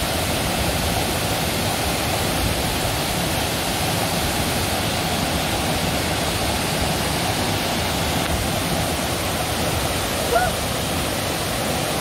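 Waterfall: a steady, unbroken rush of falling water, with a brief pitched sound near the end.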